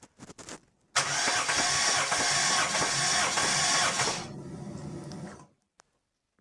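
Starter motor cranking a Toyota 7A-FE inline-four with all spark plugs removed, turning it over evenly for about three seconds for a compression test on the first cylinder, then dying away. A few light clicks come just before the cranking.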